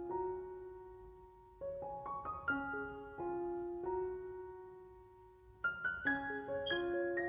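Slow instrumental piano music. Short runs of notes begin about one and a half seconds in and again near the end, and each chord is left to ring and fade in between.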